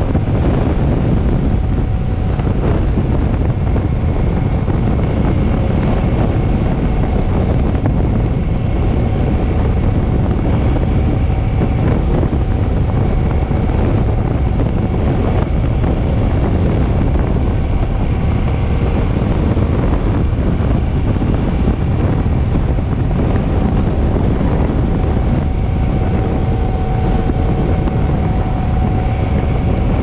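Heavy wind rumble on the microphone of a Suzuki M50 motorcycle cruising at steady speed. The bike's V-twin engine runs underneath as a faint, even hum.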